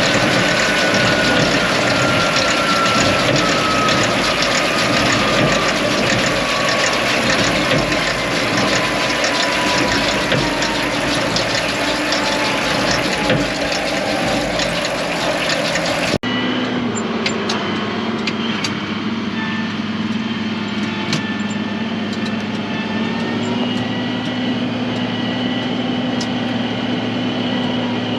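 Tractor pulling a big square baler in the field, its engine and baler machinery running steadily, with a thin tone slowly falling in pitch over the first half. About sixteen seconds in the sound cuts abruptly to a steadier, lower engine hum with occasional clicks.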